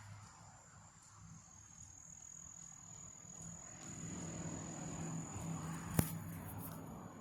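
Small electric RC car driving, its motor hum growing louder from about four seconds in, with one sharp knock about six seconds in. A steady high-pitched whine sits under it.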